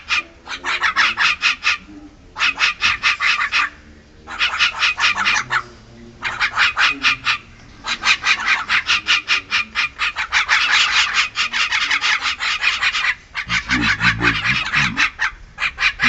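Javan mynas chattering: bouts of rapid, harsh, evenly repeated notes, each bout lasting one to two seconds with short pauses between.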